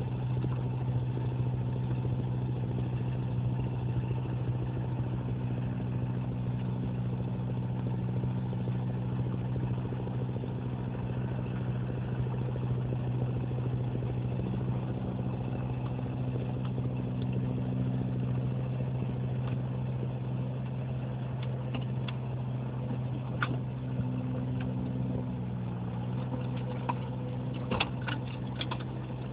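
Valpadana 3014 compact tractor's engine running steadily while it drives a front-mounted snow blower through deep snow, with a few short clicks near the end.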